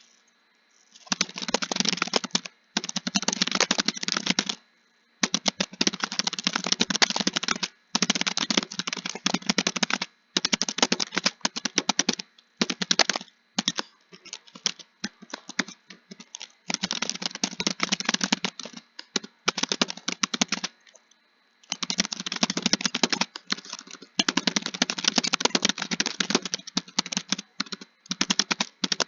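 Computer keyboard being typed on quickly, keystrokes clattering in runs of a few seconds broken by short pauses.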